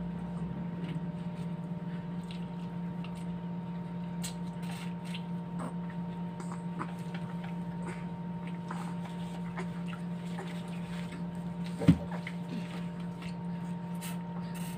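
Close-miked eating sounds of shrimp eaten by hand: shells being peeled, chewing, and lip smacks as fingers are sucked, heard as many small wet clicks over a steady low hum. A single sharp knock about twelve seconds in is the loudest sound.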